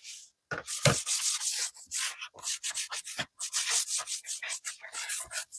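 A pipe being rubbed clean by hand: quick repeated scrubbing strokes, a few a second.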